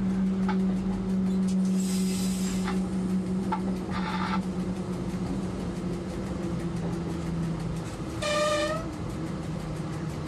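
Diesel locomotive engine running with a steady low hum, heard from the cab as the train rolls along. There are two brief hissing bursts about two and four seconds in, and a short horn blast about eight seconds in.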